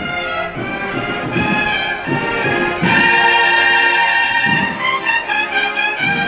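Processional brass band playing a Holy Week march: held trumpet-like notes that change every second or so, over low, irregular beats.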